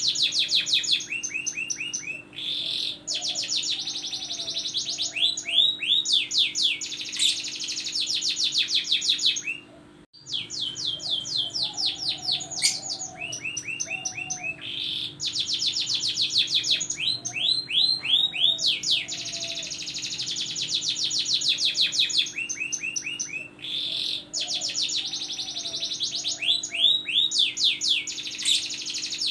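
Domestic canary singing a long, fast song of rapid trills and chirped phrases, breaking off for a moment about ten seconds in.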